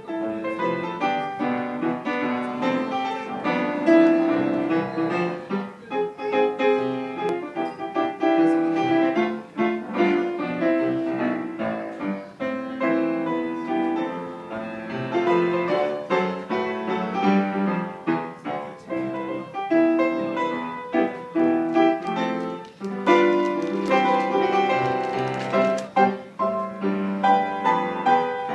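Grand piano with a clear acrylic case played solo: a continuous melodic piece of single notes and chords with no pauses.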